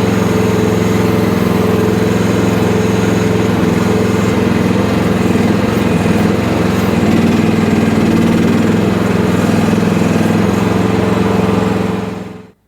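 FF12 mini excavator's small engine running steadily, then stopping near the end.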